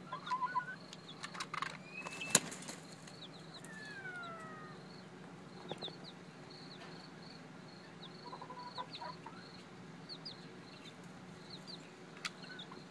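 Chickens calling quietly: soft clucks and one falling call, over a steady run of short high chirps, with a sharp click about two seconds in.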